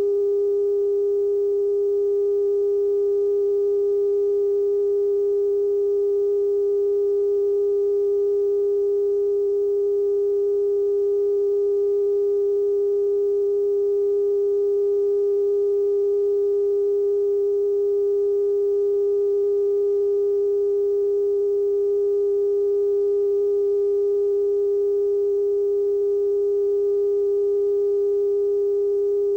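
Broadcast test tone after a TV station's sign-off: one steady, unbroken pitch a little below 500 Hz with faint overtones above it.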